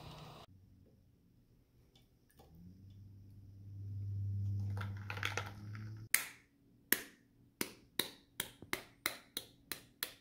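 Knife blade tapping the shell of a cooked egg to crack it: a run of sharp taps that come faster and faster over the last four seconds. Before the taps, a low hum swells and fades.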